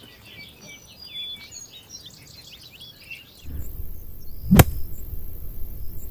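Small birds chirping and singing over quiet outdoor ambience. About three and a half seconds in, a low rumbling background comes in, and about a second later comes a single sharp thud as a red pole is jabbed into a hole in dry dirt.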